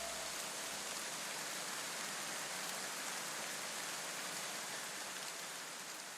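A steady, even hiss, fading out gradually near the end.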